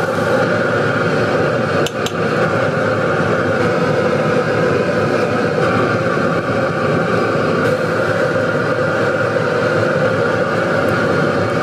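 Commercial gas wok burner running at high flame under a wok of boiling spicy seafood broth, a loud steady rush with the broth bubbling. A couple of sharp metal clinks come about two seconds in.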